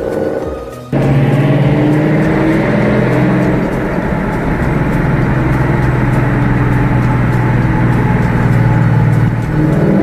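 A vehicle engine running loud at steady revs, cutting in suddenly about a second in.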